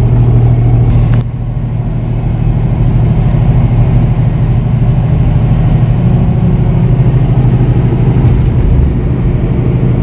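Semi-truck diesel engine running steadily under load on a mountain climb, heard from inside the cab as a low, even drone. About a second in the sound drops suddenly, then builds back up over the next few seconds.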